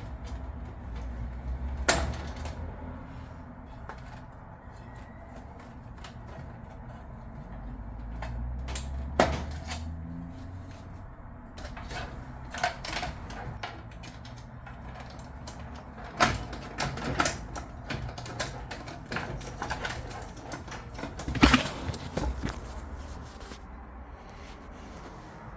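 Irregular clicks and knocks of plastic and metal parts being handled and snapped into place while a replacement circuit board is fitted in a Biasi Riva Plus combi boiler, over a low rumble. The sharpest knocks come about 2, 9, 16 and 21 seconds in.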